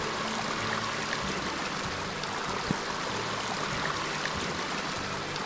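Snowmelt stream flowing steadily, a continuous even rush of water.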